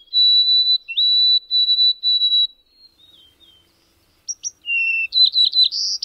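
Crown sparrows (genus Zonotrichia) singing plaintive, whistled songs. The first is a phrase of clear, steady whistles, a lower note followed by several higher ones at nearly one pitch. After a short pause a second, more varied song starts with a lower whistle and ends in quick, buzzier notes.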